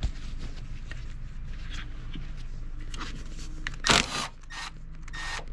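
Plastic scraping and clicking as hands work an electrical connector loose in a car's engine bay, with a short, loud rasp about four seconds in and another near the end. A steady low hum runs underneath.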